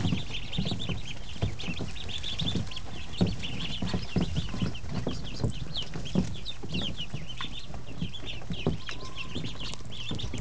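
A large flock of two-day-old ducklings (white Pekin, Rouen and white Muscovy) peeping nonstop, many short high chirps overlapping, with a few soft low bumps among them.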